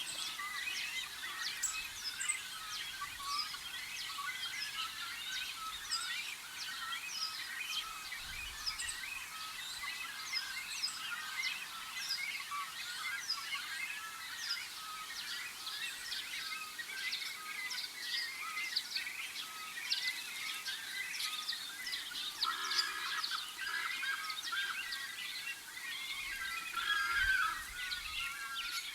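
A dense chorus of many birds chirping and calling together, with a louder, harsher call breaking in about three-quarters of the way through and again near the end.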